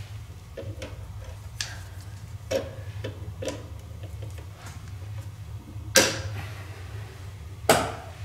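Irregular small clicks and taps of hands working old wires and wire connectors in a metal ceiling junction box, with two louder clacks about six and seven and a half seconds in. A steady low hum runs underneath.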